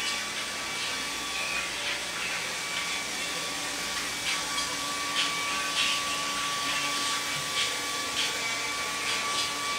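Hand-held hair dryer running steadily: an even blowing noise with a thin constant motor whine.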